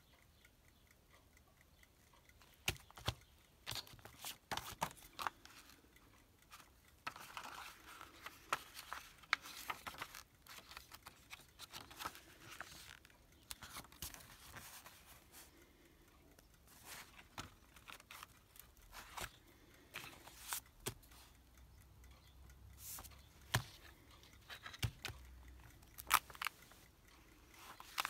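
Paper pages of an old magazine being handled and turned: intermittent rustling and crinkling with scattered sharp ticks and taps.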